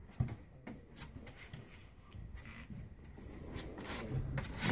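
Pug puppies scrabbling and shuffling about on towels in a plastic kiddie pool: scattered light clicks and rustles, with a sharper click near the end.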